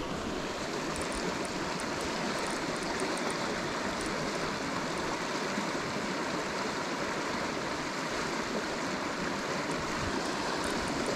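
Small stream running over a shallow stony riffle: a steady rush of water.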